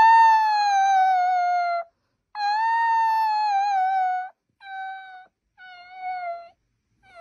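Puppy howling: two long, high calls of about two seconds each that sag slightly in pitch, followed by two shorter, quieter howls.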